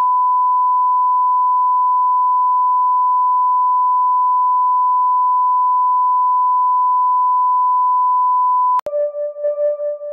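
Steady 1 kHz broadcast test tone playing under colour bars. It cuts off with a click about nine seconds in, and soft music with held notes begins.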